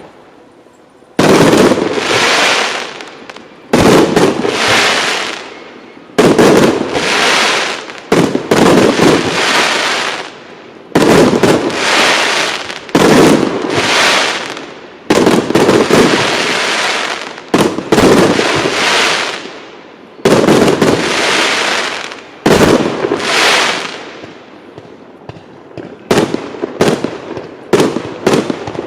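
Aerial fireworks going off in a display: loud bangs about every two seconds, each trailing off over a second or two. Near the end come quicker, sharper bangs, several a second.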